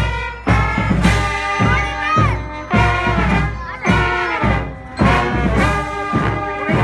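Marching brass band of trumpets, mellophones, baritones and sousaphones playing a tune together, with loud low notes on a regular beat.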